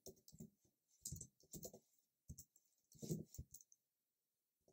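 Faint computer keyboard typing: a few scattered keystrokes, with a small cluster about three seconds in.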